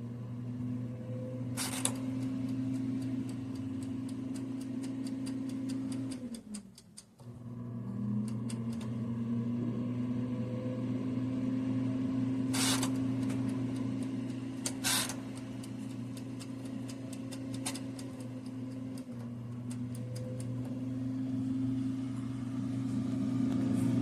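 Countertop air fryer toaster oven running, its fan motor giving a steady hum that breaks off briefly about seven seconds in, with three short clicks along the way.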